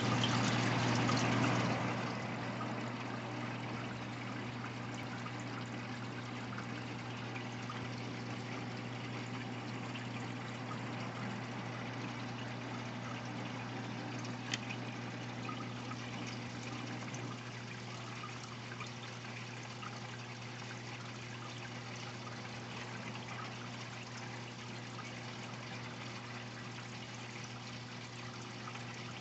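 Reef aquarium water circulating and trickling, with a steady low pump hum under it. It is louder for the first couple of seconds, and there is a single faint click about halfway through.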